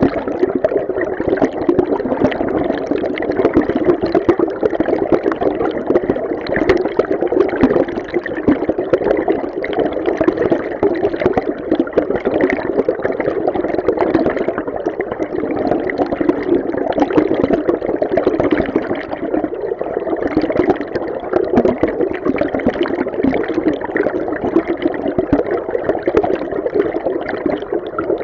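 River stream recorded underwater: a steady, dense rushing and gurgling of flowing water, muffled, with most of its weight low in pitch.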